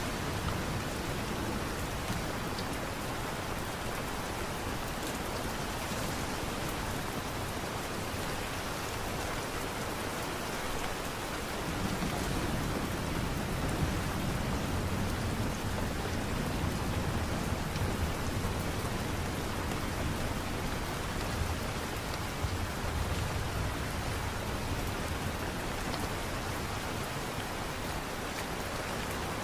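Steady light rain falling. Partway through, a low rumble swells up and then fades.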